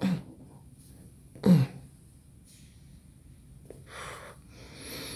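A woman smoking a cigar: two short hums from her closed mouth, one at the start and one about a second and a half in, then soft breathy puffs as she draws on the cigar and blows out smoke.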